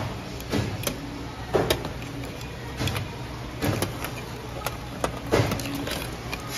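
Supermarket ambience: a steady low hum with a sharp knock or scuff about once a second.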